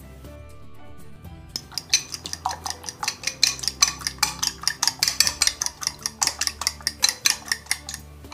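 A metal fork beating eggs with pesto in a glass bowl. Fast, sharp clinks of the fork against the glass, several a second, start about two seconds in and run on with the whisking.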